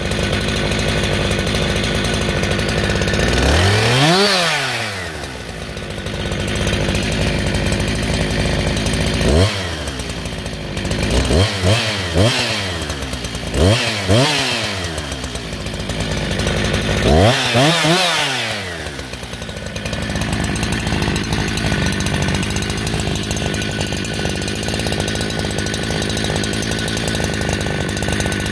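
Husqvarna 372XP two-stroke chainsaw engine running, revved up and back down with several short blips of the throttle. It then settles into a steady idle for the last third.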